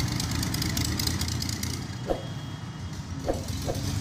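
Diesel engine of a small Volvo wheeled excavator running steadily while it loads a trolley, with three brief squeaks in the second half.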